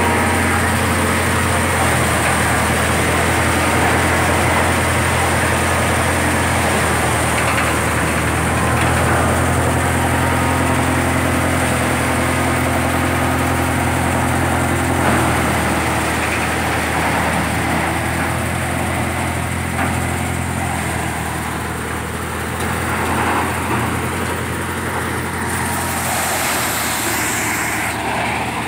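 Dashmesh paddy thresher running, driven by a Mahindra 575 DI tractor's diesel engine: a steady, loud mechanical drone. A hiss joins in near the end.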